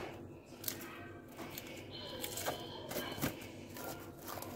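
Cling film being pulled off its roll and crinkled as it is handled, a run of soft crackles and clicks.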